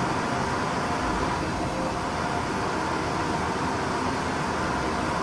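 Steady background noise, an even hiss with a low hum, with no distinct knocks or clicks standing out.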